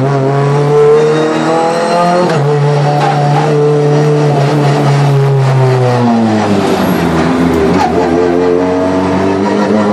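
Renault Clio 3 Cup race car's engine heard from inside the cabin under hard driving, running high and steady with a brief dip about two seconds in. About six seconds in its pitch falls as the car slows, then it climbs again as the car accelerates.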